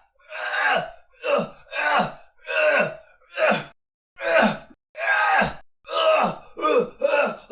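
A man's short pained groans, about ten in a row with brief gaps, each falling in pitch as it ends.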